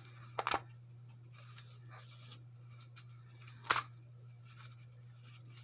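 Thin Bible pages being turned by hand: soft paper rustling, with two sharper page flicks, about half a second in and again near four seconds in, over a steady low hum.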